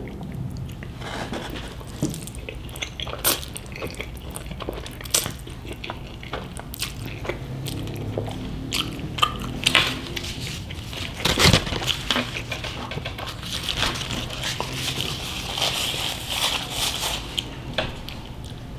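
Close-up eating sounds: spaghetti being chewed, with many short wet mouth smacks and clicks at an uneven pace and occasional utensil clicks against the dish.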